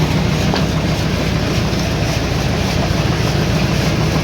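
Sawmill machinery running with a steady, loud mechanical rumble and low hum.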